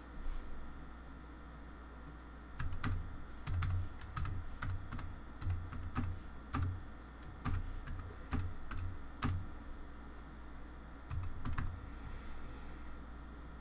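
Typing on a computer keyboard: a run of irregular keystrokes for about seven seconds, then a short pause and a couple more keys near the end.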